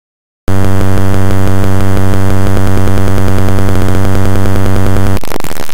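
Extremely loud, distorted electronic buzz with a low, fast pulsing, cutting in abruptly about half a second in after dead silence; near the end it turns into harsh distorted noise.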